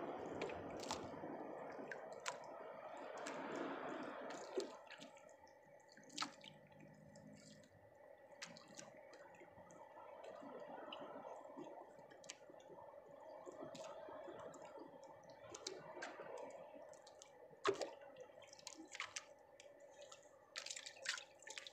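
Faint drips of water and scattered small clicks from a wet fishing handline being held and worked in the hands, over a low steady hum. A few sharper ticks stand out, the loudest near the end.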